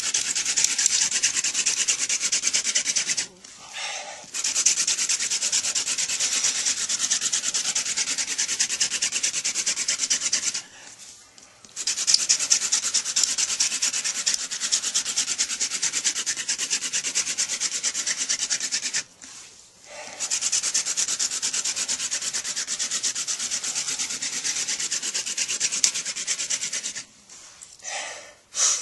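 Friction-fire hand drill: a wooden spindle with a pineapple-top-core tip is spun rapidly back and forth between the palms, grinding into a trumpet creeper hearth board with a fast, steady rubbing hiss. The hiss breaks off briefly three times, resumes each time, and stops near the end, when the drilling brings up a coal.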